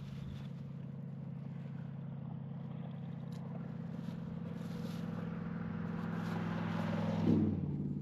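A car approaching along a dirt road and passing close by, its engine and tyre noise building to a peak about seven seconds in, when the engine tone drops in pitch as it goes past.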